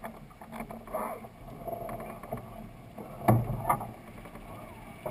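Dufour 45e sailing yacht under way, with a steady hiss of wind and water and scattered clicks and knocks of crew working on deck. The loudest is a single heavy thump about three seconds in, followed by a short clatter.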